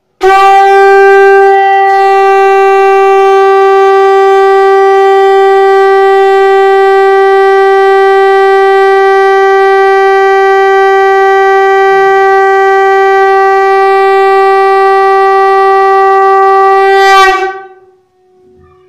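Shankh (conch shell) blown in one long, steady note, held about seventeen seconds at one even pitch and level, then dying away quickly. This is the long-breath, gently blown style meant to make the conch sound as long as possible with the tone kept level.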